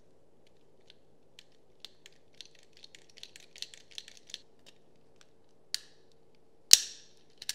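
Steel wire-stripper jaws clicking and scraping against the brass breakaway tab between the hot screw terminals of a duplex outlet as it is worked back and forth to snap it out and split the outlet. A run of small rapid ticks in the middle, then a few sharp snaps, the loudest nearly seven seconds in.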